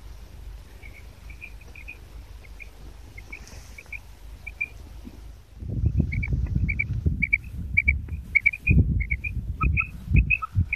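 Caged female quail calling: a run of short high chirps, often in quick twos and threes. From about halfway in, a loud low rumble on the microphone sits under the calls.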